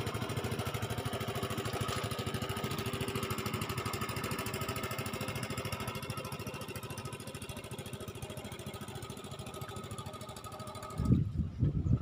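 Small engine running steadily with a fast, even firing pulse, slowly fading away. About eleven seconds in it cuts off suddenly to uneven low rumbles and bumps.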